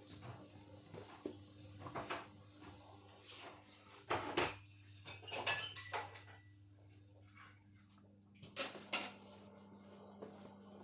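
Candy washing machine running with a low steady hum that drops in pitch about eight seconds in, while it tries and fails to balance the load for its spin. Several sharp clattering clinks ring out over it, the loudest about five and a half seconds in.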